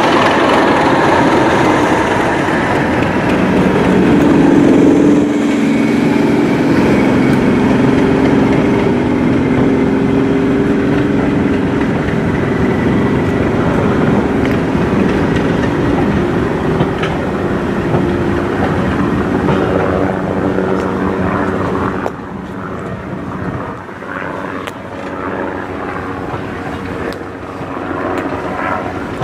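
Diesel locomotive's engine running hard as it hauls a train of coaches out past the platform. About three-quarters of the way through it drops away, leaving the quieter rumble and faint clicks of the coaches rolling by.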